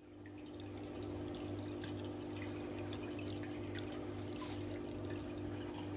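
Saltwater aquarium running: a steady low hum from the tank's pump under water trickling, with small scattered bubbling ticks. The sound fades in over the first second.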